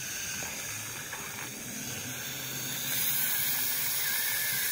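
Dental suction tube in the mouth drawing air with a steady hiss, getting a little louder about three seconds in.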